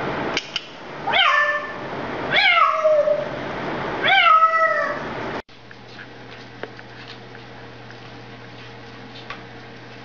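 African grey parrot meowing like a cat, three falling calls about a second apart. Then an abrupt cut to a quiet, steady low hum with a few faint taps.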